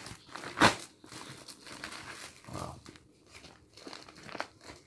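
Paper courier envelope being handled and torn open by hand. There is one sharp, loud paper burst about half a second in, then softer crinkling and rustling.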